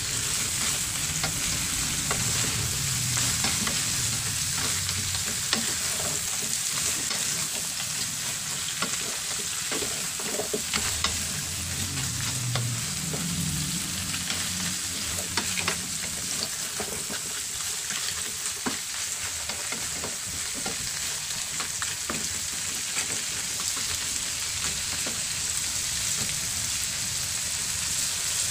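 Oil sizzling steadily in a frying pan of sautéing crabs, squash and yardlong beans, stirred with a wooden spatula, with scattered clicks of the spatula against the pan.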